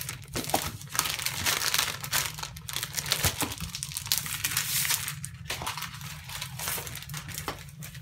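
Plastic shrink wrap crinkling and crackling in irregular bursts as it is handled and pulled off a large scrapbook paper pad.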